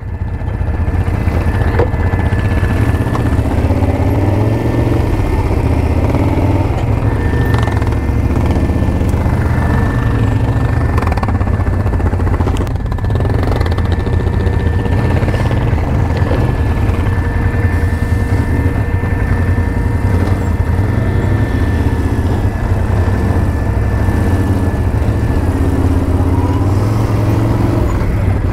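ATV engine running steadily while the quad is ridden along, a constant low engine rumble with no big changes in revs.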